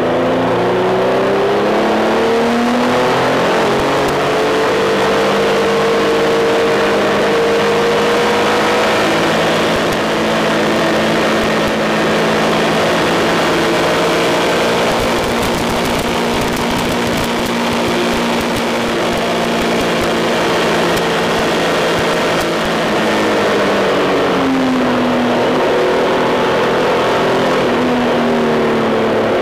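Triumph Tiger 1200's inline three-cylinder engine under hard acceleration, its pitch rising over the first few seconds and then held at high revs on a long straight with heavy wind rush. Near the end the revs fall as the bike slows on the engine for a corner, then rise again.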